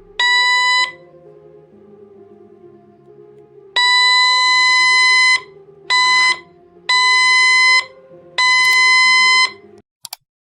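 Homemade doorbell circuit sounding a steady, high electronic beep, five times with uneven lengths, some short and some held more than a second and a half.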